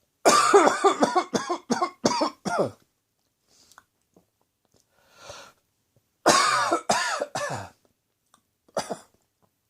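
A person coughing in fits, set off by curry spices caught in the back of the throat: a quick run of about six coughs, a breath in, then a second run of about four and one more cough near the end.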